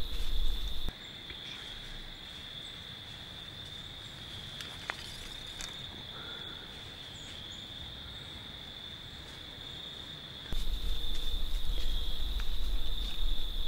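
Steady, high-pitched insect chorus, one continuous trill at the same pitch throughout. A low rumble sits under it in the first second and again from about three seconds before the end.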